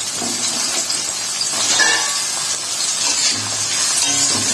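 Chopped carrots, beans and capsicum sizzling steadily in hot oil in a kadai, with background music.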